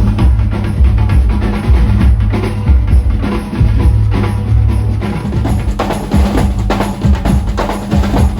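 Loud amplified live percussion with a heavy bass drum, played in a steady rhythm during a band's sound check. About five seconds in the pattern changes to sharper, brighter hits.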